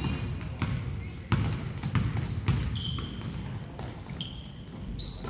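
Basketball game on a hardwood court: sneakers squeak in many short high chirps and the ball bounces in sharp thuds, over a steady low murmur of voices from the stands.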